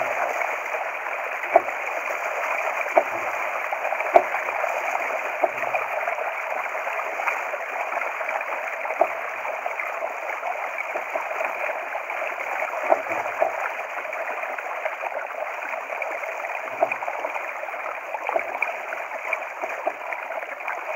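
Water rushing steadily along the hull of a Laser dinghy under sail, muffled, with irregular sharp knocks every few seconds.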